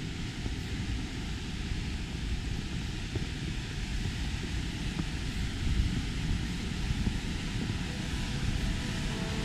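Wind buffeting the camera's microphone: a steady, uneven low rumble.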